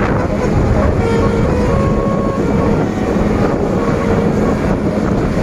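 Large bus rumbling past, with wind buffeting the microphone. Faint short tones sound about a second in and again near four seconds.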